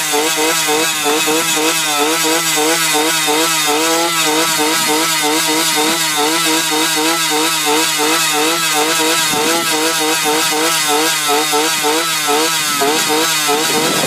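A motor engine running close by, its pitch wavering unevenly several times a second.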